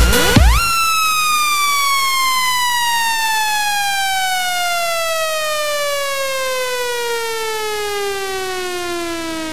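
Electronic dance music breakdown: the beat cuts out about half a second in, leaving a single synthesized tone that slides slowly and steadily downward in pitch.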